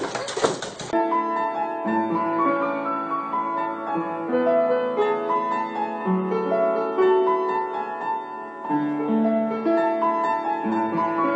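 Piano music: a melody of held notes over lower notes. It begins about a second in, when a louder, rattly noise stops suddenly.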